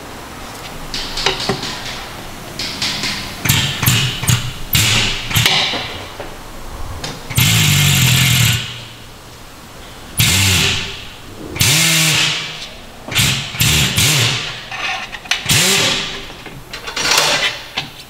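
Handheld air tool run in repeated short bursts of a second or less inside a car tire, working the inner liner around a nail puncture for a patch repair. Each burst is a hiss with a hum that winds up and down, the longest about halfway through.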